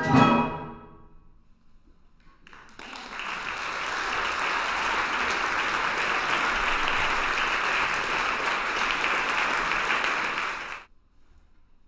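A flute orchestra's final chord rings out and dies away, then after a short pause the audience applauds steadily for about eight seconds before the applause stops abruptly.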